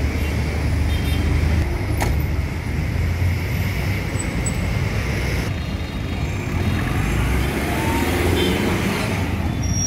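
Street traffic noise: motor vehicle engines running with a steady low rumble.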